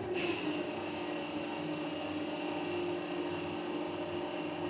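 TRAK 1845RX CNC lathe running a program, its spindle turning while the tool cuts the bar: a steady machine hum with a high whine. The pitch dips slightly just as it begins.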